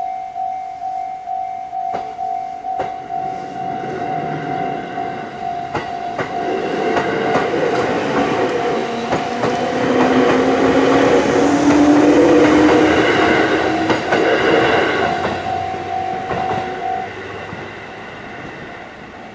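Japanese level-crossing warning alarm ringing in even electronic pulses while a train runs over the crossing, the train getting louder and then fading, with a rising whine as it passes. The alarm stops near the end.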